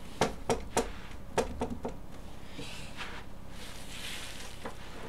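A newly unboxed 3D printer being handled: a quick run of clicks and knocks in the first two seconds, then some rustling and one more click near the end, with a loose part rattling around inside the printer.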